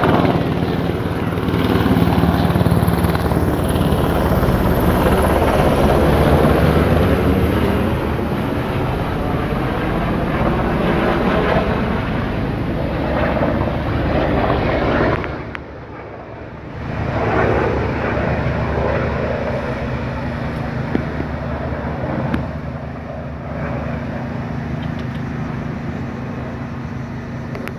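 Coast Guard rescue helicopter's rotor beating steadily, loud at first. It drops away sharply for a moment about two-thirds of the way through, then returns and slowly fades as the helicopter flies off.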